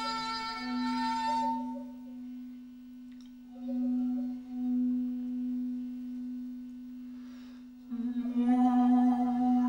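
Large glass bowl partly filled with water, made to sing by a hand moving on its rim: a steady low ringing tone with fainter overtones above, swelling and easing a few times. Near the end it grows suddenly louder and fuller, with wavering upper tones.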